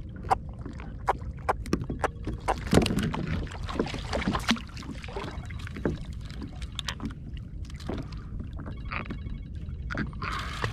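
Water lapping at a plastic sit-on-top kayak hull, with many light, irregular knocks and taps on the hull as the paddler moves about in the boat.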